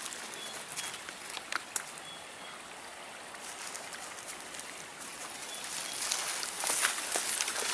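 Footsteps and brushing through tall weeds and undergrowth, with a few sharp clicks in the first couple of seconds; the rustling grows louder in the last few seconds. A faint short high note sounds three times.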